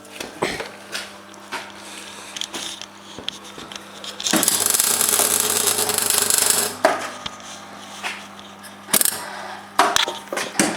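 MIG welder tack-welding a steel wheel-arch patch: one crackling weld burst of about two and a half seconds in the middle, then two short spluttering bursts near the end as the spool runs out of welding wire, over the welder's steady hum and scattered clicks.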